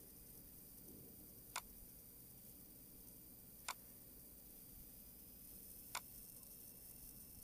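Computer mouse button clicked three times, about two seconds apart, each a sharp short click over a faint steady hiss.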